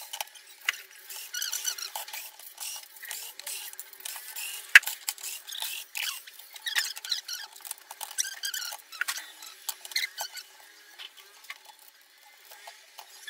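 Screws squeaking as a hand screwdriver turns them out of a plastic TV back cover, with scattered clicks and knocks of plastic and screws. One sharp click a little under five seconds in is the loudest sound.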